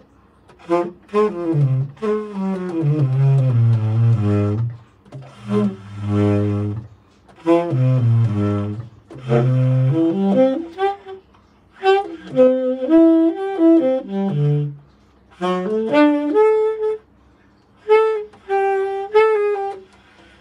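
Tenor saxophone played solo in six short improvised phrases with brief pauses between them. The early phrases sink to its deep low notes and the later ones move higher.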